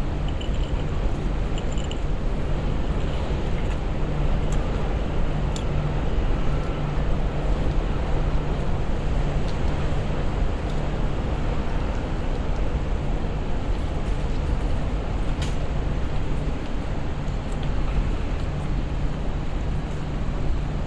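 City street background: steady traffic noise with a constant low hum, and a few brief clicks.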